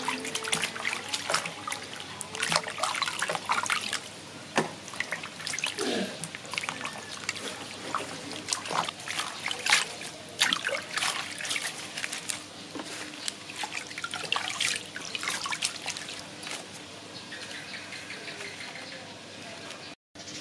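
Water splashing and sloshing in a stainless steel bowl as hands rinse bell pepper pieces and lettuce leaves, with water dripping off the leaves as they are lifted out. The splashes come thick and quick at first and thin out near the end.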